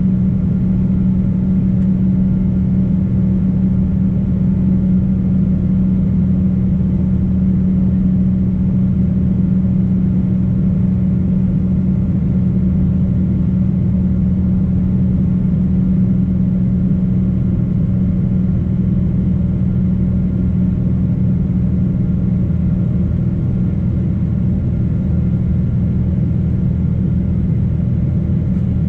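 Boeing 777-200 jet engines and rushing air in a steady drone, with a constant low hum and no rise or fall in pitch.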